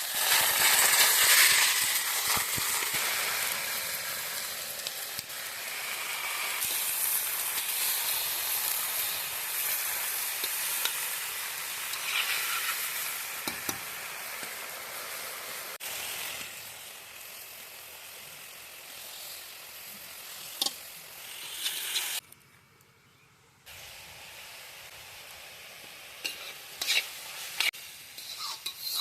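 Food frying in a pan and sizzling steadily, most likely the banana pith and mushroom dish, with stirring. The sizzle is loudest at the start and slowly dies down, breaks off briefly a little past two-thirds of the way through, and a few sharp clicks come near the end.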